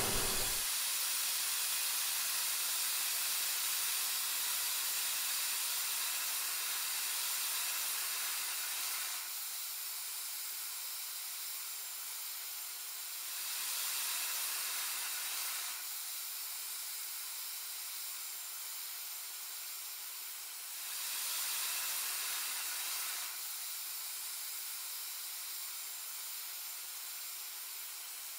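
Paint spray guns hissing as they atomise paint in a spray booth: a steady high hiss with no low rumble, swelling louder twice, about halfway through and again about three-quarters of the way through.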